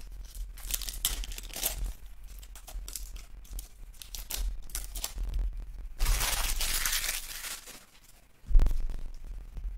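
Foil trading-card pack wrappers being torn open and crinkled by hand, in many short crackles with a louder stretch of crinkling about six seconds in. A single dull thump near the end.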